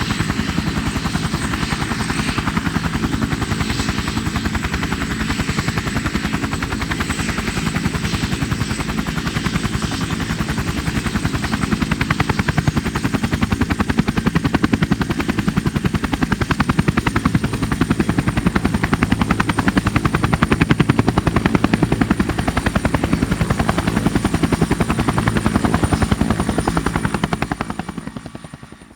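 Bell 212 helicopter running, its twin-turbine whine steady over the fast, even chop of the two-bladed main rotor. It grows a little louder partway through, then fades out near the end.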